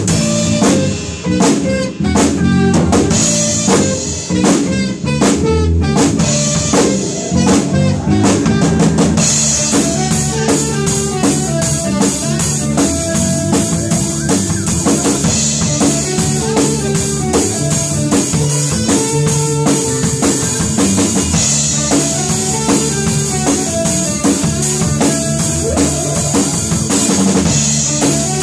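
A live band playing together: drum kit with electric guitar and bass guitar. For the first nine seconds or so the band plays short, spaced hits, then it opens into a full, continuous groove with cymbals.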